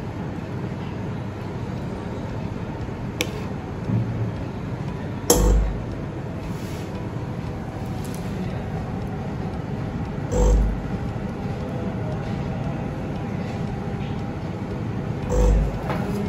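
Front-loading Class B autoclave running through its heating and sterilization cycle: a steady mechanical hum and hiss, with a dull low thump about every five seconds, three in all, and a sharp click about three seconds in.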